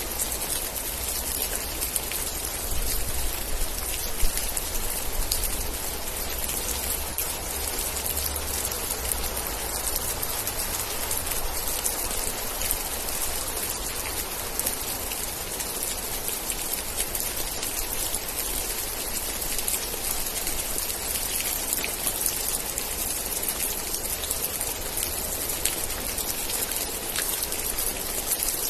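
Steady rain falling, a dense patter of individual drops over a continuous hiss, with a low rumble underneath and one sharper drop hit about four seconds in.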